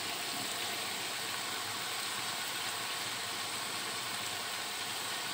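Steady, even sizzle of boiled beef pieces frying in oil in a cooking pot.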